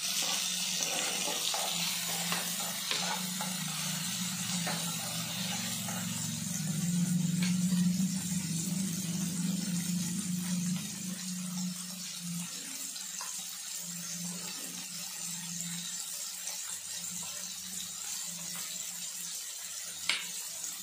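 Tomato, onion and chillies frying in oil in a kadai: a steady sizzle that eases off after the first several seconds, over a low hum that is strongest in the first half.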